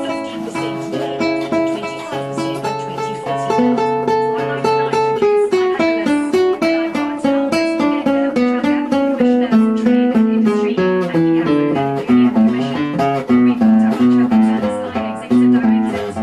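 Acoustic guitar music: a run of plucked notes over a moving bass line.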